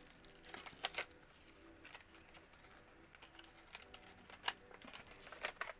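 Quiet handling of plastic packaging and small camera accessories: a scatter of sharp clicks and crinkles, a few louder ones, over faint low notes.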